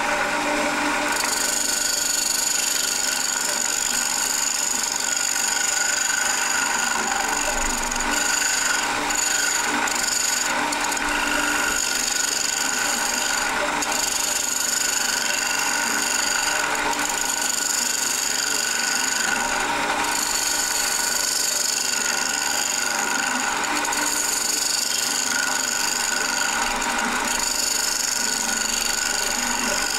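Wood lathe running while a hand-held turning tool cuts into the face of a spinning wooden disc: a steady scraping hiss over the lathe's even whine. The cutting lets up briefly every few seconds as the tool comes off the wood.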